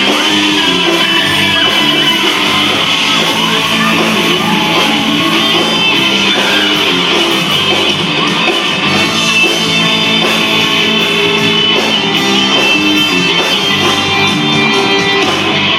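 Band playing rock music live, with guitars and a singer's voice in a loud, continuous mix.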